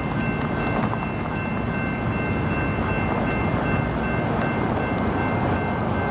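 Steady low rumble of a distant diesel freight train on the line, not yet in view.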